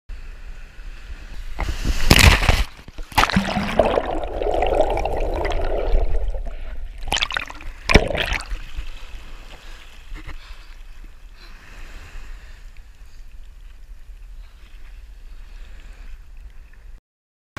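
Sea water sloshing and gurgling around a camera held at the surface, with several loud splashes in the first eight seconds as the camera dips in and out, then quieter lapping. The sound cuts off suddenly near the end.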